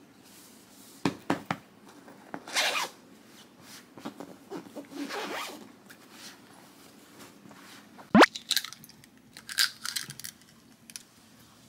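Fabric bedding and pillows rustling and patting as they are handled, then a sharp knock about eight seconds in as an egg is cracked, followed by short crackles of the shell being pulled apart over a glass measuring cup. The knock is the loudest sound.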